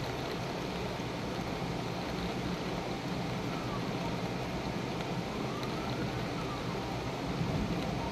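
Steady rain during a thunderstorm, with a siren wailing faintly in the background, rising and falling in pitch from about halfway through.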